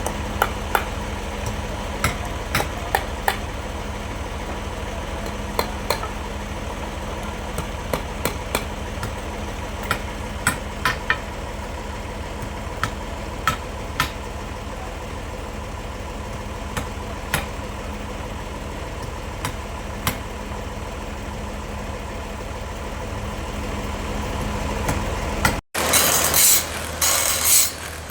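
A sawmill engine runs steadily at idle, with scattered sharp knocks and clicks. Near the end the sound cuts abruptly to louder, rapid mechanical clattering.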